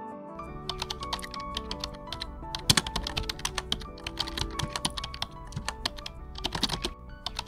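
Rapid, irregular clicking of typing on a computer keyboard, over background music.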